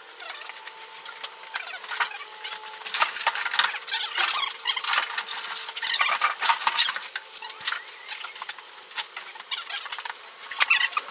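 Irregular metal clicks, scrapes and squeaks from sheet metal and hand tools being worked, with no steady engine sound.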